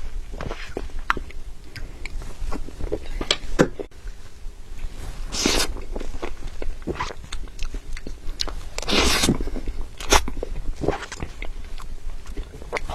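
Close-miked chewing of soft creamy cake: soft, chewy mouth sounds and small smacks at an irregular pace, with a few louder, longer ones about five and nine seconds in.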